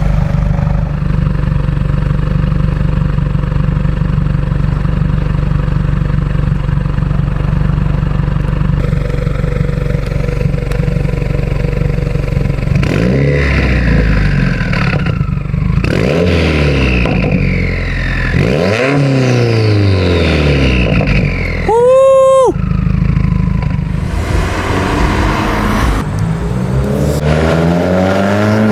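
2020 Subaru WRX's turbocharged 2.0-litre flat-four, with a Grimmspeed Stage 2 setup and a Tomei Expreme Ti titanium exhaust, idling steadily, then blipped in three quick free revs about halfway through, each climbing and dropping back to idle. A short high tone sounds a little later, and near the end the engine is revved again.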